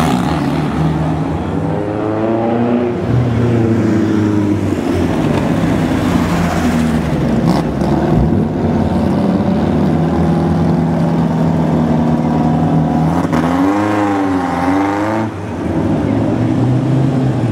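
Vintage car engines idling, with a few short blips of revs about two seconds in and again near the end.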